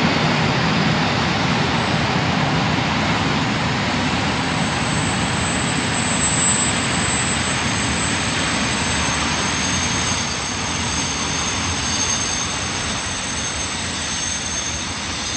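Freight train wagons rolling past on the rails, a steady rumble and rattle. Thin high squealing tones from the wheels come in about halfway and grow stronger toward the end.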